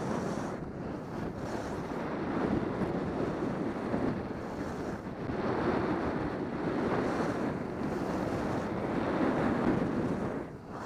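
Wind rushing over a helmet-mounted camera's microphone during a downhill ski run, mixed with the hiss of skis sliding on packed snow; the rush swells and eases and dips briefly near the end.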